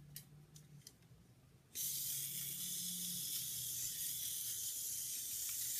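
A small battery-powered line-following toy tank's electric motors switch on about two seconds in and run with a steady, high, hissing whir.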